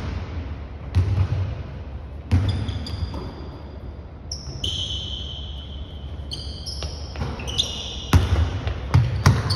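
A basketball bounces on a hardwood gym floor, with single thuds early on and a quick run of dribbles near the end. In the middle, sneakers squeak on the court in short, high squeals.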